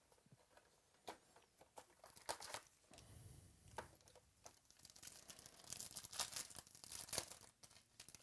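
Faint tearing and crinkling of plastic wrapping as a box of trading cards is opened, with scattered small crackles and clicks that grow busier in the second half.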